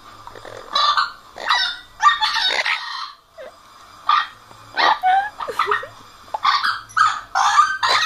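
Orange-winged amazon parrot calling excitedly: a run of short, loud squawks one after another, with a brief pause about three seconds in.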